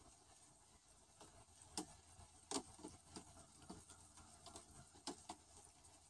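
Faint, irregular light clicks and taps, about eight of them, the sharpest about two and a half seconds in, over near silence.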